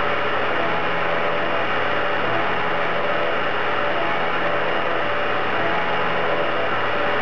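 Elrod Machine Route 66 Taskmaster 3 CNC knee mill cutting aluminium plate under flood coolant. The spindle and cutter run steadily, giving a hum of several held tones over even cutting noise.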